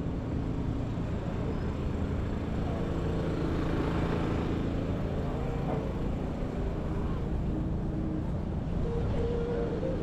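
Midtown Manhattan street traffic: steady traffic noise of vehicles running and passing, swelling slightly about four seconds in.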